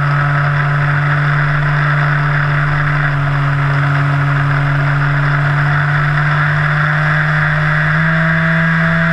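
Electric RC plane's motor and propeller heard from close underneath: a steady, loud buzzing drone over a rush of air, stepping slightly higher in pitch about eight seconds in.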